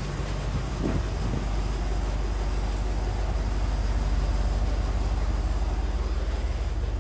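A boat engine running steadily, a low drone with a constant rush of noise over it.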